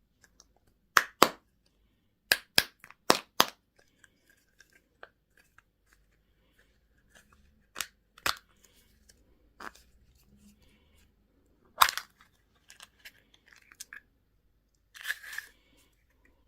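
Plastic candy and toy packaging being opened by hand: a series of sharp cracks and snaps, some in quick groups of two to four, with a short rustling tear near the end.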